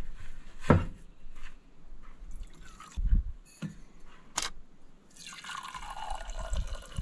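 Coffee poured from a glass pour-over carafe into a mug: a steady pouring stream starts about five seconds in, its pitch sliding as the mug fills. Before it, a few light knocks and clinks as the carafe and mug are handled.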